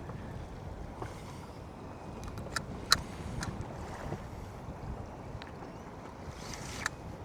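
Small fishing boat drifting at sea: a steady wash of water and wind, with a handful of sharp light clicks scattered through.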